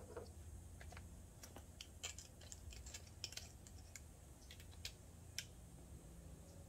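Faint, irregular small clicks and ticks of power cables and alligator clips being handled at a battery's terminals.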